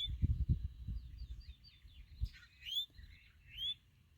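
A songbird chirping: short rising chirps repeated every second or so, with softer twittering between them. Low rumbling in the first second and a single low thump about two seconds in.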